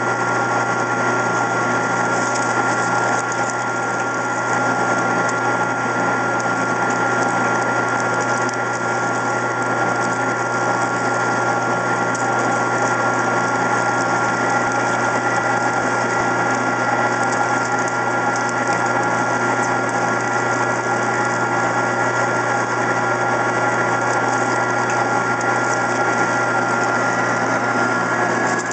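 Benci TY-C0632 metal lathe running steadily while it turns a heavy cut in mild steel, a constant hum with a steady whine over it and no let-up.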